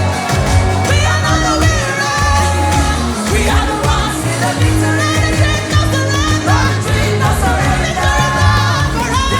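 A song with a singing voice over a steady beat and bass.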